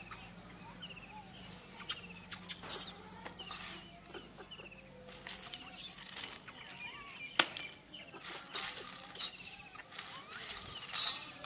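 Dry chickpeas clicking against a steel bowl and pattering onto a concrete roof as they are scooped and scattered by hand, with one sharp click about seven seconds in. Birds chirp repeatedly in the background.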